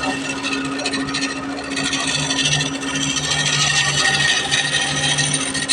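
Electric power tool running with a steady motor hum while it abrades acacia wood. The rasping swells and eases several times.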